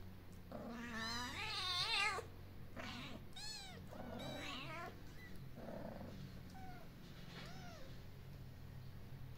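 Tiny kittens mewing, about seven high, wavering cries, the first one long and the loudest, the rest shorter and spread out, over a faint steady low hum.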